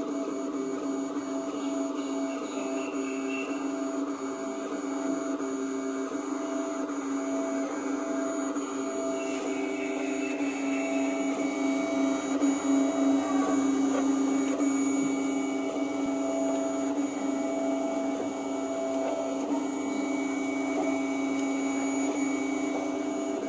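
X Smart 3D printer printing: a steady mechanical hum with several steady tones from its motors and cooling fans.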